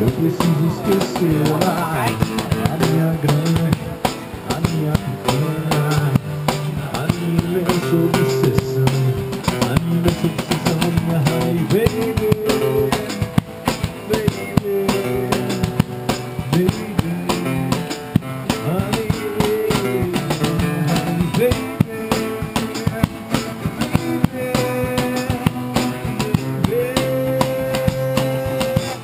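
Background music: a band with guitar and drum kit playing a steady beat.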